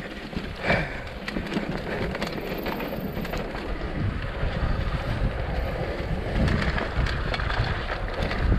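Mountain bike riding down a dirt trail: wind buffeting the microphone over the rolling noise of the tyres, with scattered rattles and knocks from the bike.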